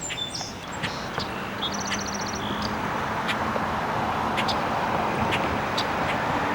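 Steady road traffic noise that slowly grows louder, with scattered short bird chirps and a brief rapid trill about two seconds in.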